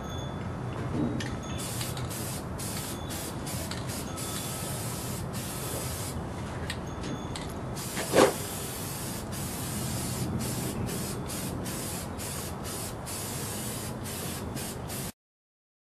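Aerosol can of appliance spray paint hissing in many short bursts as light coats of paint are sprayed on. A brief louder sound comes about eight seconds in, and the sound cuts off suddenly near the end.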